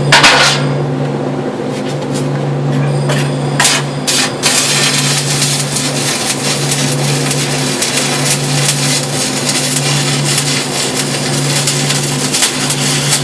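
A few short sharp sounds, then from about four seconds in the continuous crackle of a stick-welding arc, over a steady low hum.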